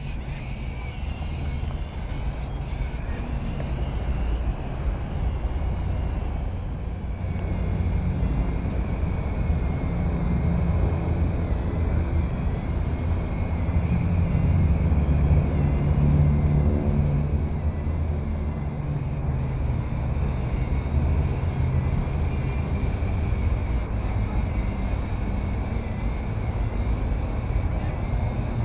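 Steady low rumble of outdoor background noise, a little louder for a few seconds in the middle.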